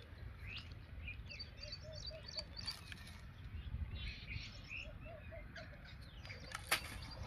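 Several small birds chirping in quick series of short high notes over a steady low rumble, with one sharp click near the end.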